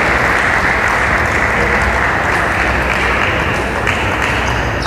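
Audience applauding steadily, the clapping easing a little near the end.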